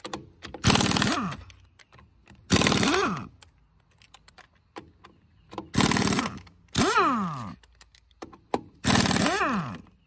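Pneumatic impact wrench hammering on a car's lug nuts in five short bursts. Each burst ends with the air motor's whine falling in pitch as the trigger is let go. It runs on air stored in the compressor and a 5-gallon helper tank, with the compressor itself not running.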